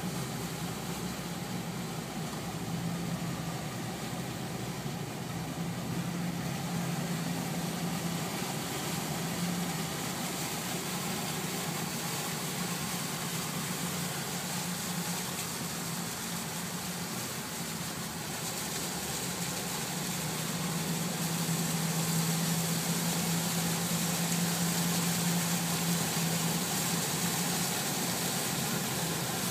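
A vehicle's engine running steadily at low speed, heard from inside the cab, with water washing against the vehicle as it wades through a flooded road. It gets a little louder in the second half.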